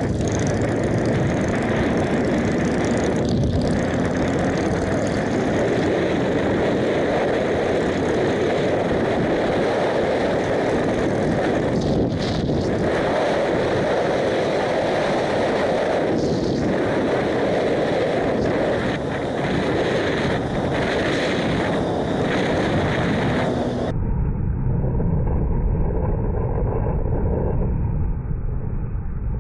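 Motorcycle engine running at road speed, mixed with wind and road noise on a helmet-mounted camera. About three-quarters of the way through, the sound abruptly turns duller and more muffled.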